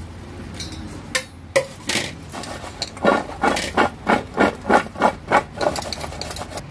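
Paneer cubes and cut vegetables landing in and knocking around a steel plate. There are a few separate clinks as the paneer goes in, then from about halfway a run of quick, regular knocks, about three a second, as the plate is shaken to mix them with the spices.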